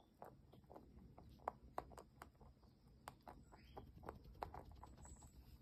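Angora rabbit crunching a hard treat: faint, irregular crisp clicks, a few a second.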